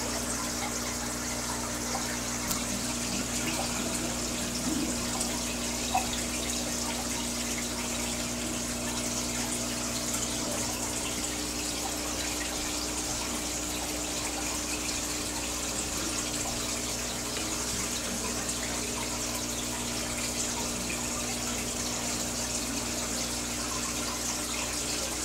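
Aquarium filter and aeration running: steady trickling, bubbling water over a steady low motor hum.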